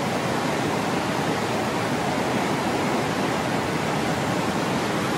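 Steady rushing of a waterfall and the rapids below it, an even, unbroken wash of water noise.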